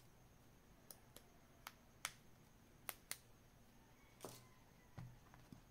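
Small plastic and metal phone repair tools being handled: about ten light, irregular clicks and taps, the sharpest about two seconds in, over near silence.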